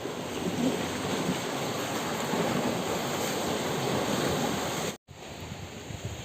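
Sea waves surging and washing among shoreline rocks, a continuous rushing surf. The sound drops out sharply for an instant about five seconds in, then resumes more softly.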